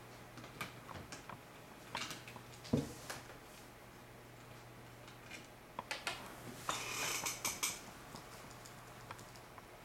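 Scattered small clicks and knocks of antennas and cables being handled as the antennas are taken off USRP2 radio boxes, with a short rustle about seven seconds in. A faint low hum runs underneath.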